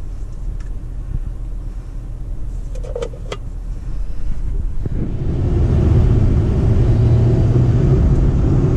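Cabin sound inside a Honda City e:HEV hybrid: a low steady hum while the car sits still, then, from about five seconds in, louder, steady road and drivetrain noise at highway speed.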